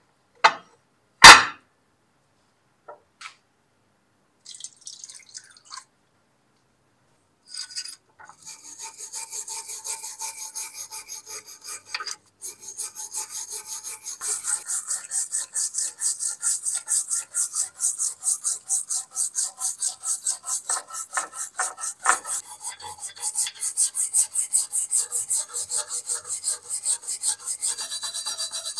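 A small wire brush scrubbing a rusty axe head in a glass dish of rust-remover solution, rapid back-and-forth strokes that run steadily from about eight seconds in, loosening the softened rust. Near the start, two sharp knocks of the iron axe head against the glass dish, the second the loudest sound.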